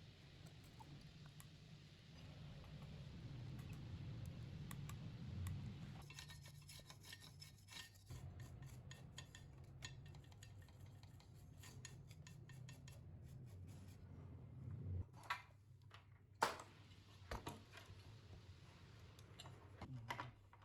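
Faint rubbing and scraping of hand work over a steady low hum, with a run of small ticks a few seconds in and several sharp clicks near the end.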